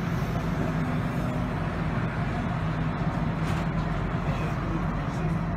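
Steady interior hum of a tram, with a constant low drone and an even rumble.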